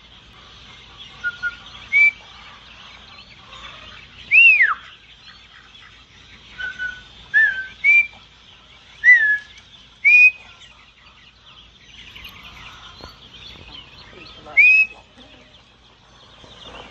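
A handler giving a series of short herding whistles to a Border Collie working ducklings, about ten of them, some level and some gliding down in pitch, one long downward slide near the middle. Faint, constant peeping of the ducklings runs underneath.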